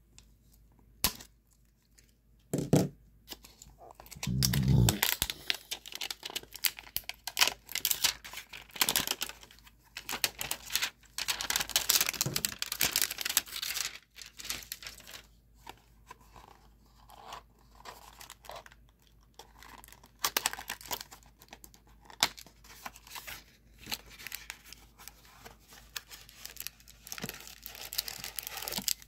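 Plastic and foil wrapping of a baseball card value pack being torn open and crinkled by hand in irregular bursts, with a couple of dull low thumps a few seconds in.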